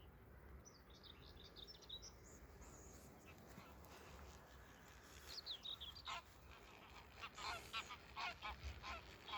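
Geese honking: a quick run of short honks that begins about halfway through, after some fainter, higher calls.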